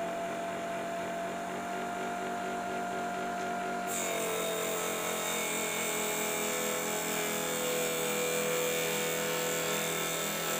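Small 80–100 W mini table saw running with a steady whine. About four seconds in, the blade bites into a thin sheet: the pitch drops a little and a cutting hiss joins. The motor sounds light under the cut, which the operator takes to mean the speed setting is right for this thickness.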